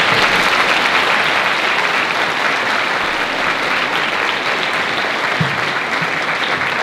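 Large audience of school students applauding in a steady round of clapping that eases off slightly toward the end.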